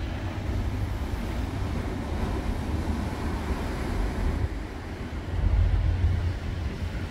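Wind buffeting the microphone as a low rumble that gusts louder about two-thirds through, over a steady wash of ocean surf breaking on the beach.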